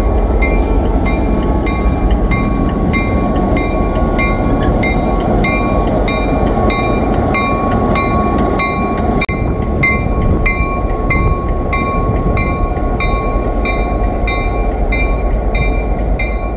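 Six-axle, 1800-horsepower diesel-electric locomotive pulling away, its diesel engine running with a steady heavy rumble. The locomotive bell rings about twice a second throughout.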